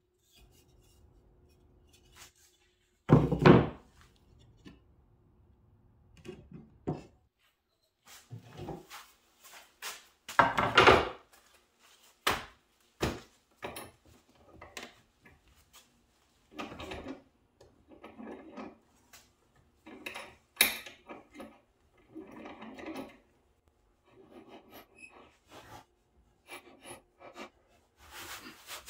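Woodworking handling sounds as a wooden canoe yoke is set down and clamped in a bench vise: two loud wooden thunks, about three and eleven seconds in, among scattered knocks, clicks and short scrapes. Near the end, a sander starts on the yoke.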